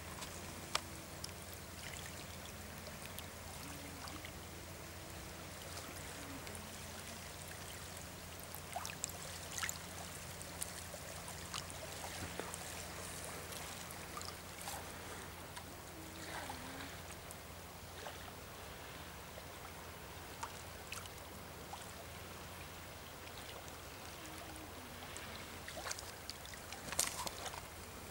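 Small waves lapping and splashing against a rocky shore, with scattered sharper splashes over a steady low hum.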